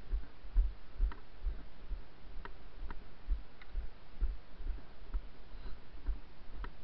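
Footsteps of a person walking on grass, heard as dull thumps about twice a second, with scattered light clicks.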